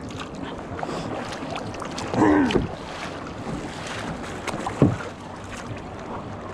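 Kayak paddling on open sea: double-bladed paddle strokes and water washing along the kayak's hull, with wind on the microphone. A short voice cuts in about two seconds in, and a sharp knock comes just before five seconds.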